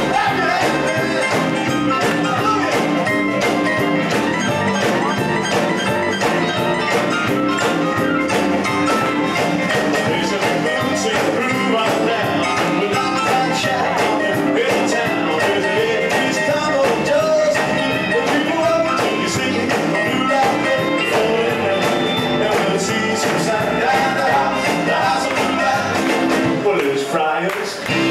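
Live rock-and-roll band playing loudly and steadily on electric guitars, keyboard, electric bass and drum kit.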